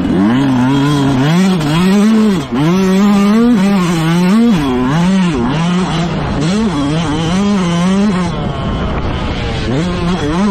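Motocross bike engine racing, revving up and down over and over as the throttle is opened and shut, with a short drop in sound about two and a half seconds in.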